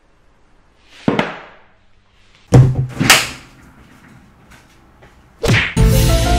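A few sudden loud slams or thumps. The loudest two come about half a second apart, and music starts just before the end.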